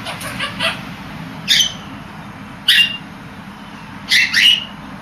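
Pet bird coughing in imitation of its owner: a few faint, short cough sounds, then four louder, sharp ones spread across the few seconds.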